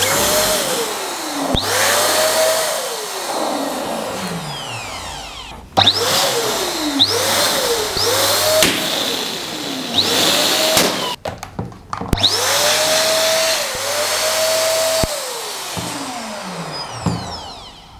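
Electric twin-nozzle balloon air pump running in short bursts, filling balloons with a rush of air. Its motor whine rises as it spins up and slides down in pitch as it slows, over and over, and the sound cuts off abruptly a few times.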